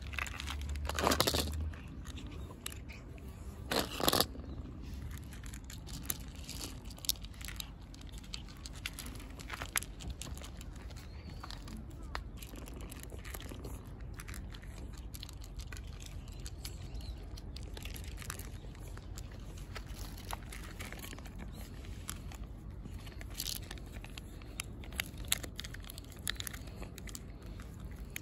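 Cats eating dry kibble: many small, irregular crunches and clicks, with two louder rustling noises in the first few seconds.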